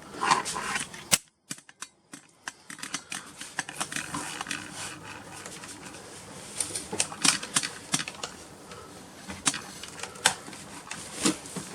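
Scattered clicks and taps of plastic on a Dell Latitude laptop as it is handled, with a short dropout to near silence about a second in.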